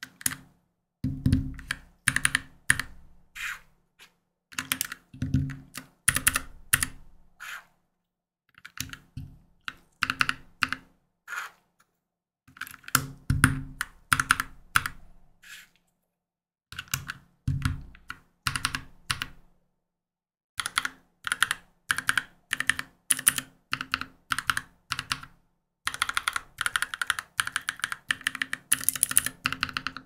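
Typing on a NuPhy Halo65 65% mechanical keyboard fitted with Gateron switches: short runs of keystrokes separated by brief pauses, some strokes with a deeper thud, then a faster unbroken run near the end.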